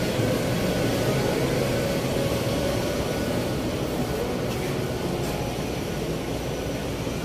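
Steady rumble of a moving motor vehicle: engine and road noise, even throughout.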